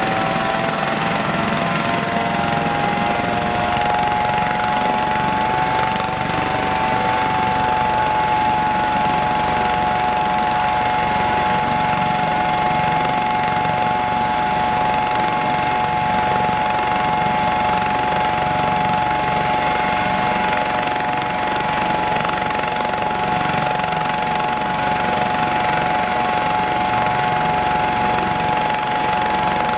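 Airbus AS 365 Dauphin helicopter running on the ground with its rotor turning: a steady rotor and engine noise under a high twin-turboshaft whine. The whine rises in pitch over the first several seconds, then holds steady.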